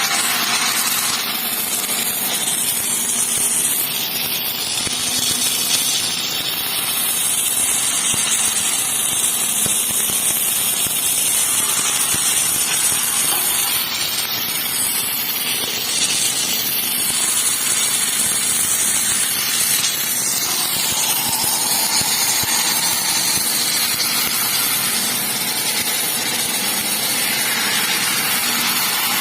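Welding: a steady, continuous hissing sizzle with fine crackle, holding at an even level throughout.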